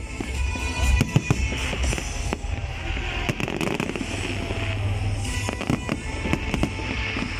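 Aerial fireworks shells bursting in quick, irregular succession, a run of sharp bangs and crackles, over music playing.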